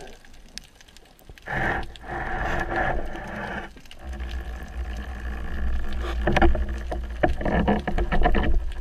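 Muffled underwater noise picked up through a camera housing: water swishing and rumbling, with scraping surges as a fish is picked up and handled close to the camera.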